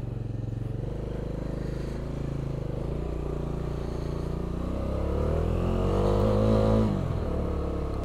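Motorcycle engine running under way as the bike is ridden. The engine note rises steadily for a few seconds, getting louder, then falls away just before the end as the throttle eases or the rider shifts up.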